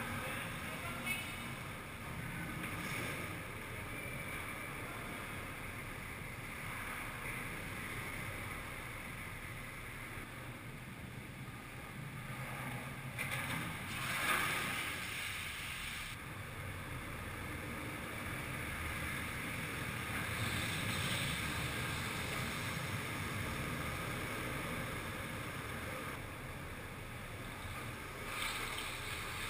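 Skateboard wheels rolling on a concrete floor: a steady rumble that swells as riders pass closer, about halfway through and again near the end.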